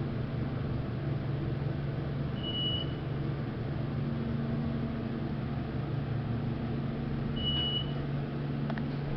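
Westinghouse elevator car travelling between floors: a steady low hum of the running car, with two short high beeps about five seconds apart as it passes floors.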